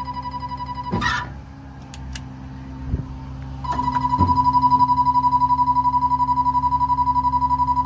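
An electronic warning alarm sounding a steady high beep with a fast flutter, over the low hum of a diesel engine idling. The beep cuts off with a sharp metal clunk about a second in, and starts again, louder, with another clunk about halfway through.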